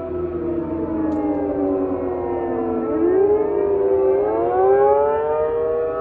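Outdoor civil defense warning siren sounding during a test, several tones at once. Its pitch slides down over the first half, then rises again from about halfway through, growing louder.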